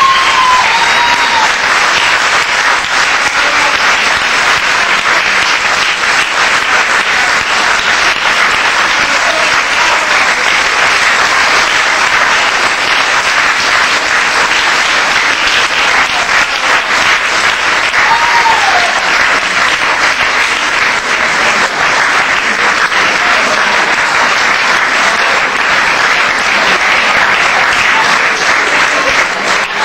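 Audience applauding steadily after a sung performance, with a few brief calls rising above the clapping.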